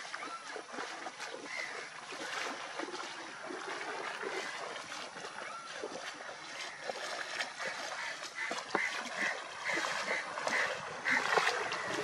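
Feet wading through shallow floodwater, splashing steadily with each step, and a bicycle being pushed through the water. Short high calls come and go in the background, more often in the second half.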